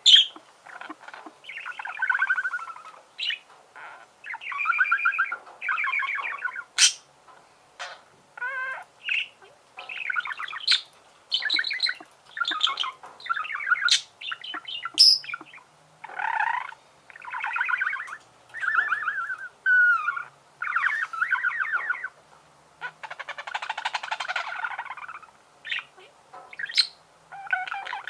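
Budgerigars warbling: a steady run of short, buzzy chattering phrases with sharp clicks and squeaks between them.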